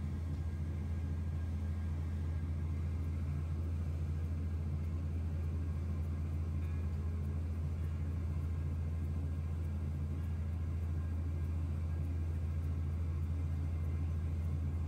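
Steady low rumble of a running vehicle, a constant deep hum that does not change.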